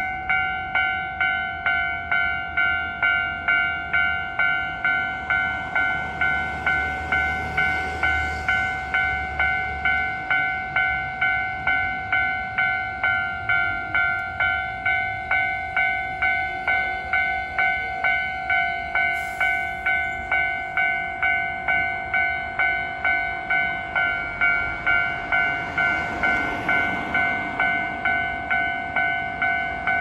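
Japanese level-crossing warning bell ringing steadily, about two electronic dings a second. Under it a Hankyu 7000-series electric train runs slowly into the station, its running noise growing near the end.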